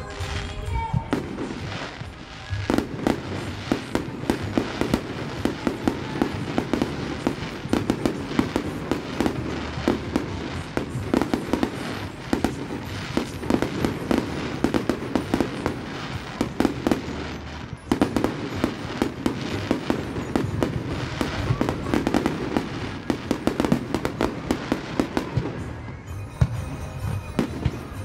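Aerial fireworks display: shells bursting in a rapid, continuous barrage of bangs and crackles, easing briefly about two seconds in and again near the eighteen-second mark.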